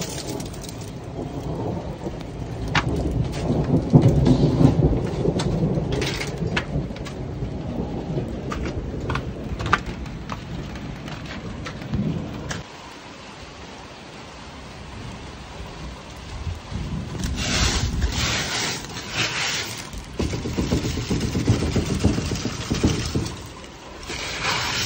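Rain from a hailstorm falling and dripping, with scattered sharp clicks, under a low rumble of thunder that swells about four seconds in and dies away by about twelve seconds. In the second half come louder bursts of rustling as hailstones are handled.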